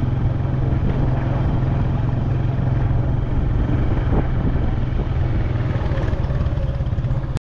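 Motorcycle engine running steadily while riding, a constant low hum under a steady rush of noise.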